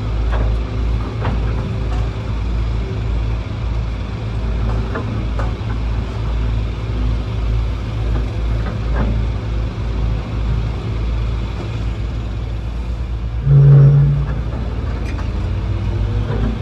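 Excavator's diesel engine running steadily with a low rumble, with scattered knocks and clanks. A short, loud, low-pitched tone sounds once about three-quarters of the way through.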